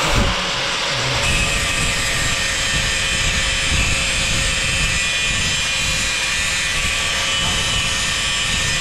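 Angle grinder with a thin cut-off disc cutting through a steel bar: a steady whine with a dense, harsh grinding noise, starting with a sudden jump in loudness as the disc bites into the metal.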